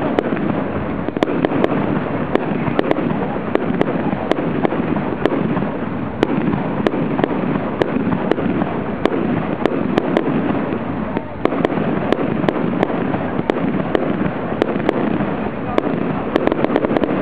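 Fireworks display with rockets going off in quick succession: many sharp bangs and crackles over a continuous din.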